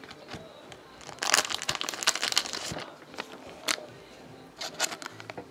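Foil wrapper of a 2013 Totally Certified football card pack being torn and crinkled by hand, a dense crackling rustle about a second in lasting over a second. It is followed by a few scattered short rustles and clicks as the cards are handled.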